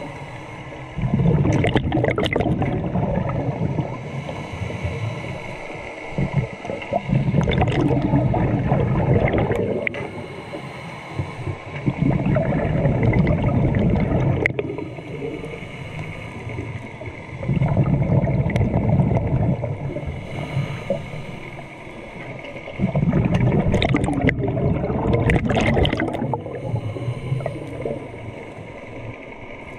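Scuba diver breathing through a regulator underwater: bubbling exhalations come about every five to six seconds, each lasting two to three seconds, with quieter spells in between and a few sharp clicks.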